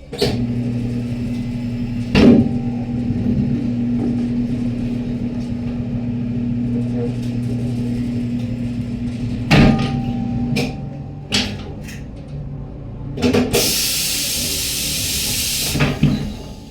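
Tyre-shop machinery: an electric motor hums steadily for about ten seconds, broken by several sharp metal clanks. Near the end comes a loud hiss of compressed air lasting about two seconds.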